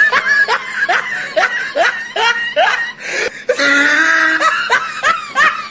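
A person laughing in quick repeated bursts, with one longer held sound about three and a half seconds in.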